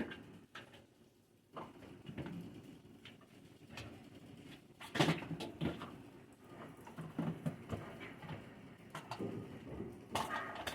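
Things being handled and moved about while a fridge is cleaned out: scattered knocks, clicks and rustles, with louder clattering about five seconds in and again near the end.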